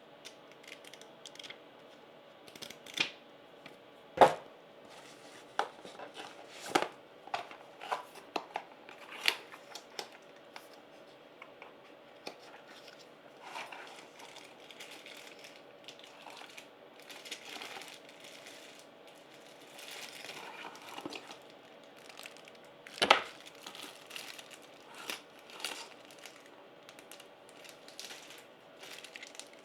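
Packaging being opened and handled: crinkling plastic and paper, tearing, and scattered sharp knocks and clicks. The two loudest knocks come about four seconds in and about 23 seconds in.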